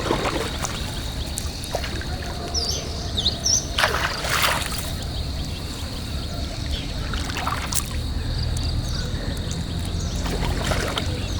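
Water splashing and dripping around a small boat as a gill net is lifted, over a low steady rumble and a thin steady high tone. A few short bird chirps come about three seconds in.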